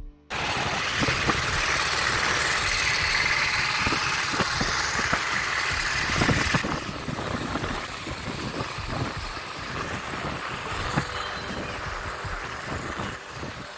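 Motorcycle running along a road, with wind and road noise rushing over the microphone; the sound drops and changes about six and a half seconds in.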